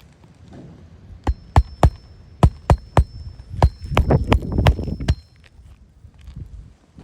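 Roofing nails being hammered into asphalt shingles: about a dozen sharp strikes in short irregular runs, with a faint metallic ring between the blows.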